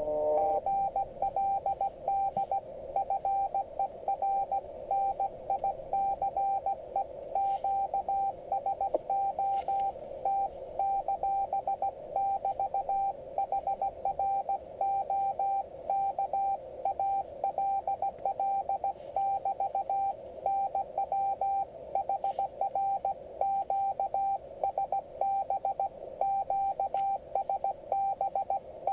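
Morse code (CW) signal from a Yaesu FT-817D transceiver's speaker: a single steady beep keyed on and off in dots and dashes over the narrow band of hiss passed by its CW filter. It is a station being received and copied by hand.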